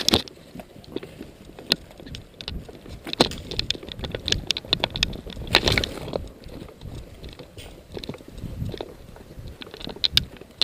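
Footsteps and rustling of clothing and gear as a player moves off, with irregular small clicks and crackles and a couple of louder brushing swells.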